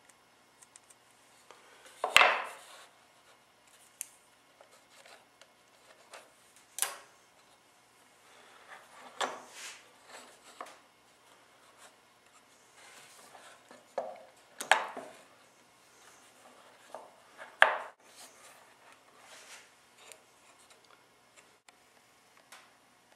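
Wooden frame pieces and small hand tools being handled on a workbench: scattered sharp knocks and clicks with some rubbing between them, the loudest knock about two seconds in and two more strong ones later on.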